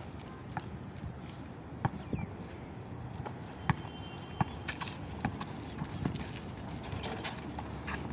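A basketball bouncing on asphalt and players' running footsteps: sharp, irregular thuds and slaps, roughly one every half second to second.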